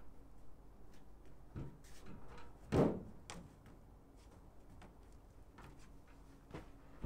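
A few scattered dull knocks and clunks, one much louder about three seconds in, as a rusty old motorbike frame is shifted about on top of a scrap car.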